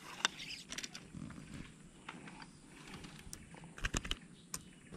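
Faint handling noise of a fishing rod and tackle: a few scattered clicks and taps, with a quick cluster of them about four seconds in as the hands work the rod and line.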